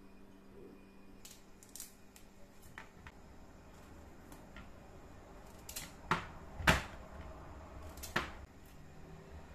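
Vegetable peeler scraping strips of skin off a courgette: a series of short scrapes and clicks, with three louder strokes in the second half.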